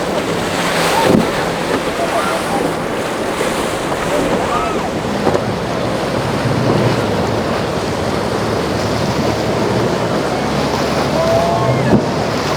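Breaking surf and boat engines in a rough inlet, with wind buffeting the microphone and a low engine drone under the wash of the waves. Faint distant voices come through, and there is a sharp thump about a second in.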